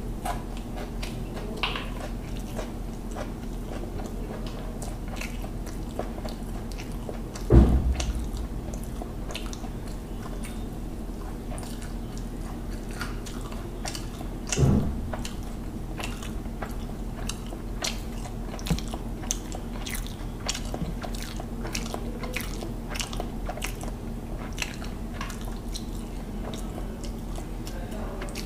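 Close-up chewing and biting of hilsa fish biryani eaten by hand, many small wet mouth clicks throughout. Two heavier thumps stand out, about seven seconds in and again some seven seconds later, over a steady low hum.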